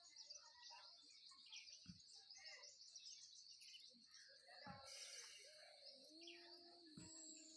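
Faint chirping of small birds over a steady high-pitched background hiss, with a held low tone starting about six seconds in.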